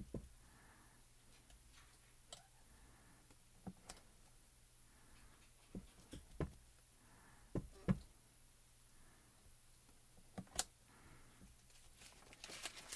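Clear acrylic stamp block tapping on an ink pad and pressed down onto cardstock: scattered short clicks and taps, several in close pairs.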